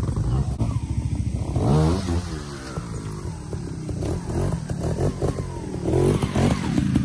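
Trials motorcycle engine running at low revs, revved up and back down once about two seconds in, then given short bursts of throttle near the end.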